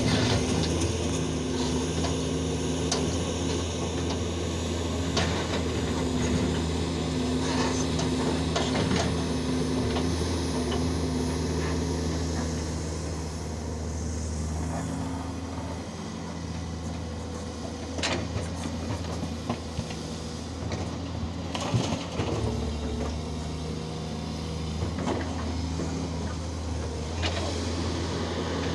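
Komatsu hydraulic excavator's diesel engine running steadily, with a few scattered sharp knocks of rock and steel. The engine eases off somewhat in the middle and picks up again near the end.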